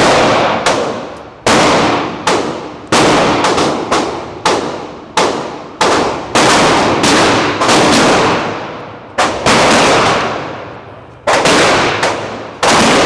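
Handgun firing about twenty shots in quick, uneven strings, each shot ringing out in a long echo of the kind an indoor range gives. It is most likely the 9mm Smith & Wesson M&P 2.0 fitted with a forced-reset trigger.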